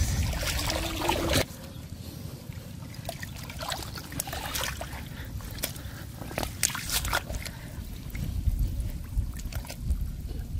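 Shallow muddy water sloshing and trickling as hands grope under the surface among weeds, with scattered small splashes and drips. It is louder for about the first second and a half, then settles.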